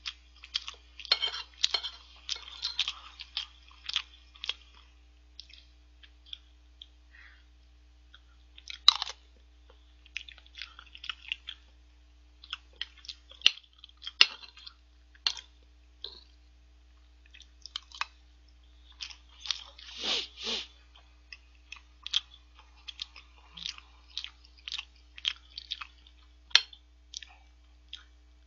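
Close-miked chewing and mouth sounds of a person eating curry and rice, in quick irregular smacks, with sharp clicks of a metal fork on the plate; a few clicks stand out louder.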